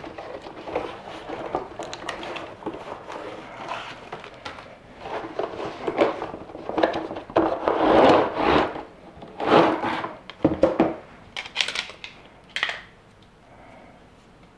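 A cardboard box being opened and unpacked, its parts slid out: irregular rubbing, scraping and rustling of cardboard with a few knocks, loudest in the middle and dying down near the end.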